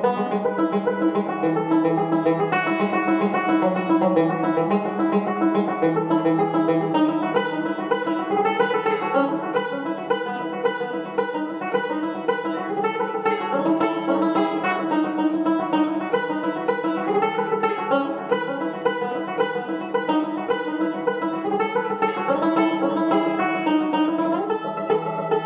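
Solo resonator banjo playing a fast tune, a steady stream of quick plucked notes.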